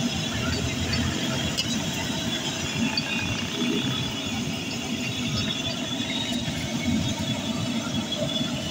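Steady din of street traffic, with no single sound standing out.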